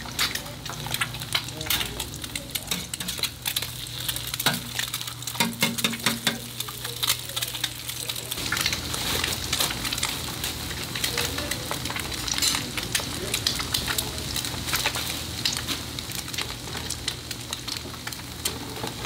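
Food frying and sizzling on a hot flat-top griddle, with frequent sharp clicks and scrapes of metal utensils, over a steady low hum.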